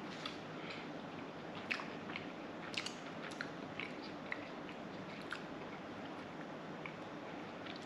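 A person chewing and biting into honey garlic beef jerky, with several short sharp clicks as the teeth work the meat.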